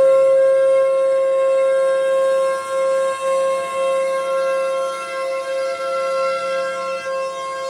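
Federal Signal Thunderbolt 1000B and Federal Signal 2001-130 tornado sirens sounding together at a steady pitch. The level swells and dips as the rotating sirens sweep around.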